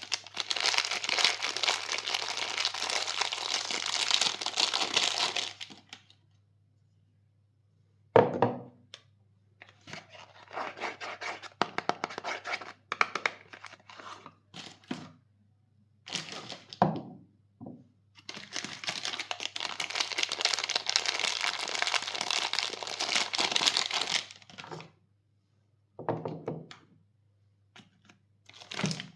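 Soap bar wrappers being torn open and crinkled in two long, dense stretches, with scattered crackles and a few dull thuds between them.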